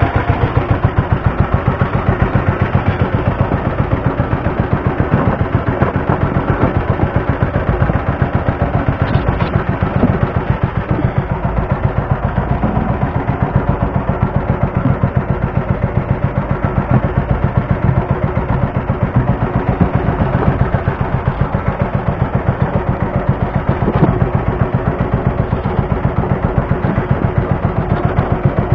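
Small outrigger fishing boat's (bangka's) engine running steadily at close range, with a fast, even beat of firing strokes.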